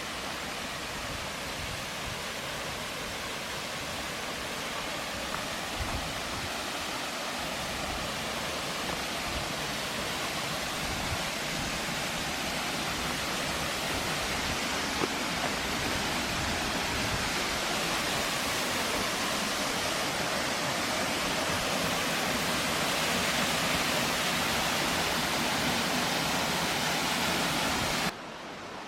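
Water rushing down a 98 m waterfall, a dense steady rush that grows slowly louder and drops away abruptly near the end.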